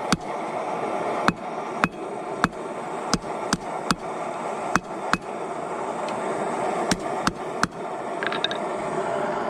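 Hand hammer striking red-hot steel blacksmith tongs to straighten them: about a dozen sharp blows at an uneven pace, with a pause a little past halfway and none near the end. A steady noise runs underneath.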